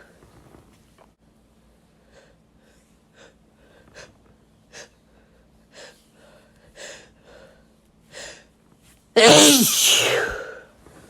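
A man sneezes once, a loud wet sneeze about nine seconds in. It is preceded by a run of short, sharp breaths roughly once a second as the sneeze builds.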